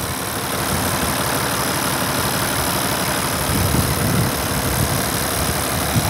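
International 966 tractor's engine idling steadily.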